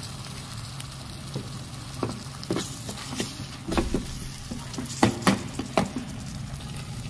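Chopped vegetables and sauces sizzling in a hot wok, stirred with a perforated metal spatula. The spatula scrapes and clacks against the pan from about a second in, loudest around five seconds in.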